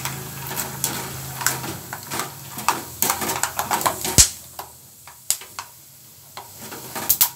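Peanuts sizzling in hot oil in a steel kadai, with a wire-mesh spider strainer scraping and clicking against the pan as they are stirred toward a light brown. One louder knock comes about four seconds in, and the sizzle thins in the second half.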